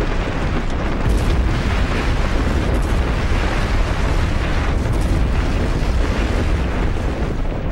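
Earthquake sound effect: a loud, steady deep rumble with a rough, rushing noise over it, getting a little louder about a second in.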